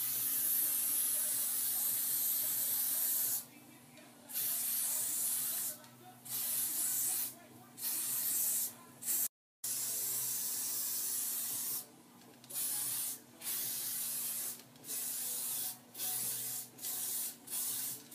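Aerosol spray paint can hissing in bursts: one long spray of about three seconds, then shorter sprays with brief pauses between them, coming quicker near the end. A steady low hum runs underneath.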